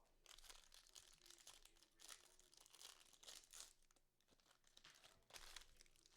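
Faint crinkling and tearing of a trading-card pack's foil wrapper as it is opened, in several bursts, the sharpest near the end.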